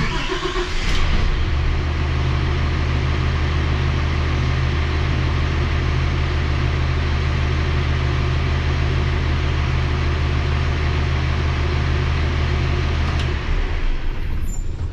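Freshly in-frame-rebuilt Cummins ISL9 diesel engine starting and settling into a steady idle, heard from inside the truck's cab. The deep drone drops away about thirteen seconds in.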